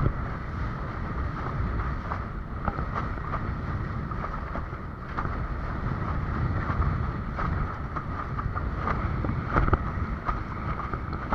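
Wind buffeting the microphone, with water rushing and slapping against a windsurf board under sail, in short splashes every second or so.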